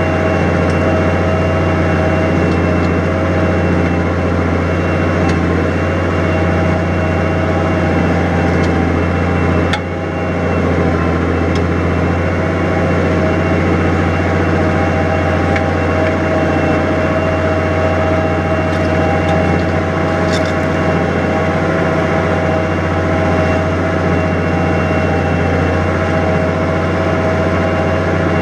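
New Holland 100-90 tractor's diesel engine running steadily under ploughing load, with one brief click and dip in level about ten seconds in.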